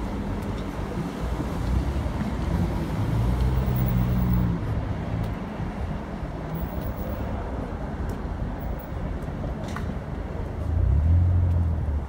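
City street traffic: a steady wash of passing vehicles, with engine hum swelling about three to four seconds in and again, loudest, near the end.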